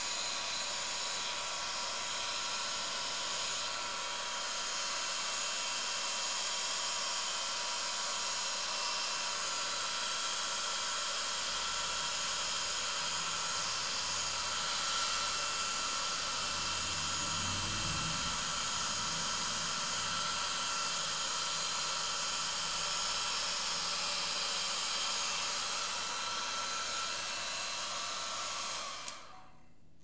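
Hair dryer running steadily: a rushing hiss of air with a steady motor whine. It stops near the end.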